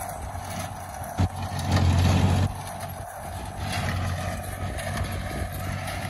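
McCormick-Deering W4 tractor running as it pulls a New Holland small square baler, its engine and the baler's mechanism making a steady rumble. The rumble swells for about a second between one and two and a half seconds in.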